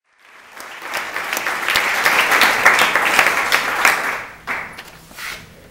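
Audience applauding a poet as he takes the microphone. The clapping rises quickly, holds, then dies away to a few last claps near the end.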